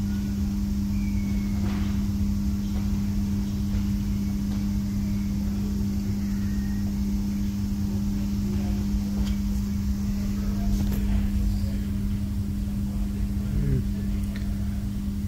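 A steady low hum over a constant low rumble, with a few faint small ticks about two thirds of the way through.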